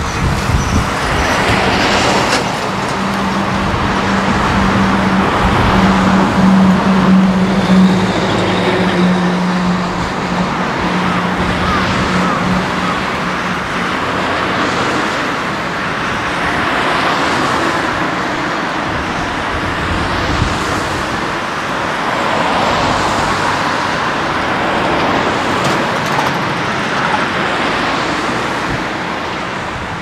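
Road traffic on a coastal highway: cars going by in a string of swells over a constant rushing background, with a steady low hum through the first dozen seconds.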